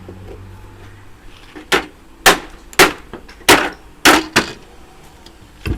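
Scrap wire and parts from a stripped-down air conditioning unit being dropped and knocked into a box: a run of about seven sharp clattering knocks, roughly two a second, starting a couple of seconds in, with one more near the end.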